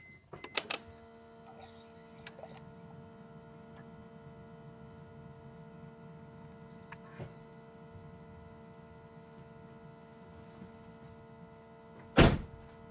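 Steady electrical hum holding several even tones, with a few clicks just after the start and one loud knock near the end.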